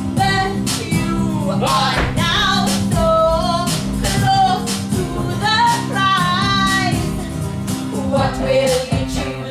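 Women's voices singing a lively show tune over instrumental accompaniment with a steady beat.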